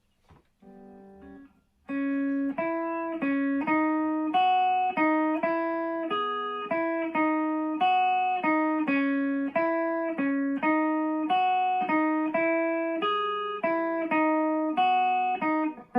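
Electric guitar played through a TC Electronic Forcefield compressor pedal with its attack knob turned fully up: a clean, picked single-note riff, about two to three notes a second, each note starting sharply and decaying, after a brief quiet lead-in.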